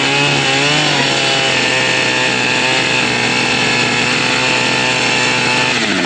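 Chainsaw running at a steady, high speed while cutting through wall framing lumber. Its pitch drops just before the end as the throttle is let off.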